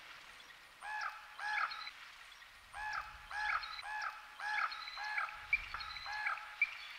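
Forest birdsong from a phone field recording, played back as a sample through a Korg Electribe ESX-1 sampler as its sample start point is stepped along. A bird's short rising-and-falling call repeats in quick runs, about two a second, with fainter high chirps behind.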